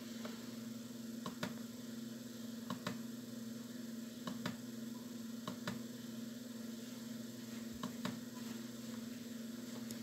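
Computer mouse button clicking about five times, each click a quick press-and-release double tick, over a steady low hum.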